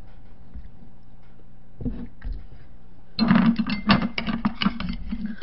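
Close-miked eating sounds at a table. A couple of soft knocks come about two seconds in, then a dense run of crackling clicks lasts about two seconds, starting about three seconds in.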